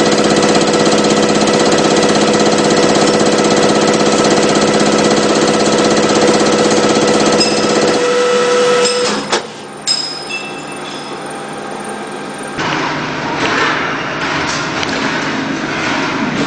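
Machine tool running with a steady hum of several fixed pitches. The hum cuts out about eight seconds in, followed by a couple of sharp knocks and then a rougher, noisier clattering.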